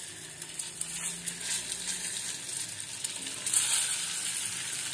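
Peeled boiled eggs sizzling in hot oil with turmeric in a steel pan as they are added to fry. The sizzle is steady and grows louder about three and a half seconds in.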